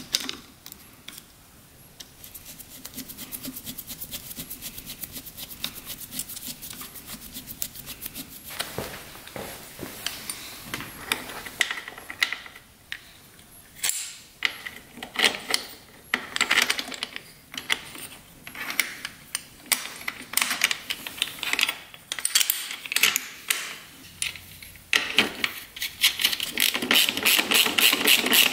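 Hand socket ratchet clicking in runs of quick, even clicks, with tools and metal engine parts knocking and rubbing between runs; the densest run of clicks comes near the end.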